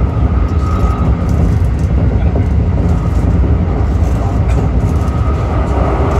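Keikyu limited express electric train running along the line, heard from inside the front car behind the driver's cab: a steady low rumble of wheels on rail.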